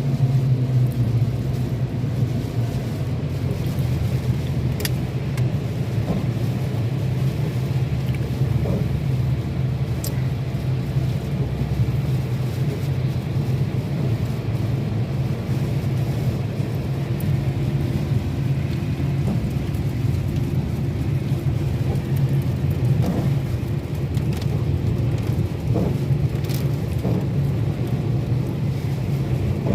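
A car running steadily, a low, even drone of engine and road noise, with a few faint ticks.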